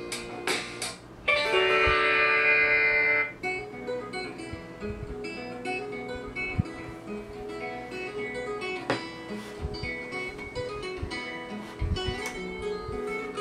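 Guitar music playing from an iPad mini 4's built-in speakers. About a second in the music breaks off and a louder passage of held notes plays briefly, then about three seconds in it switches to a different plucked-guitar track as songs are skipped.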